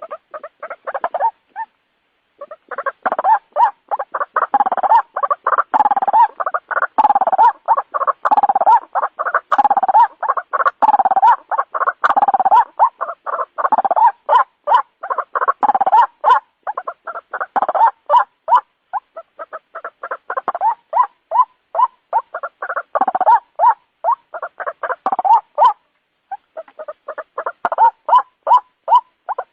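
White-breasted waterhen calling: a fast, unbroken run of repeated notes, several a second. There is a short break about two seconds in and another near the end.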